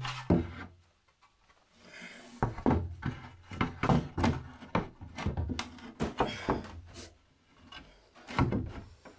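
Timber shelf boards knocking and scraping against a wooden shelf frame as they are handled and fitted into place: a string of sharp wooden knocks and thuds with some sliding rubs.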